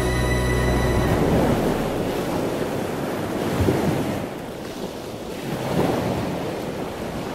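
Ocean surf breaking on a beach: a steady wash of waves that swells and ebbs, dipping about four seconds in and building again about a second later.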